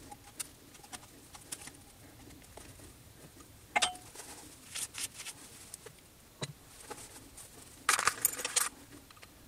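Steel tools and small parts clinking against a steel spindle housing and vise: scattered sharp metallic clicks and taps. There is a ringing clink about four seconds in and a quick run of louder clinks near the end.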